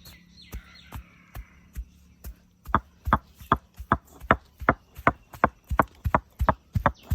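Block jaggery being pounded into powder: steady knocking blows, about two and a half a second, that become much louder about three seconds in.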